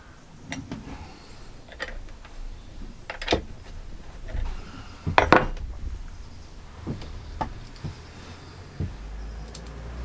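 Metal tools and chainsaw parts being handled during maintenance: scattered clinks and knocks, the loudest about five seconds in.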